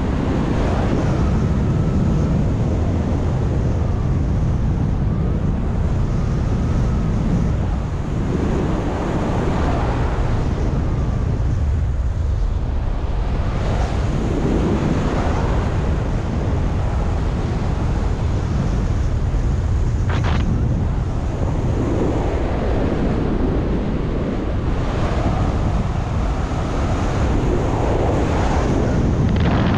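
Wind noise buffeting the microphone, a loud, steady rush that swells and eases every few seconds: airflow over the camera during a paraglider flight. A single short click about twenty seconds in.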